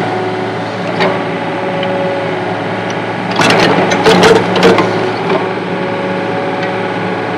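Mini excavator's diesel engine running steadily under hydraulic load while its bucket digs and stirs soil in a planting hole. There is a knock about a second in, then a cluster of scrapes and knocks around the middle as the bucket works the dirt.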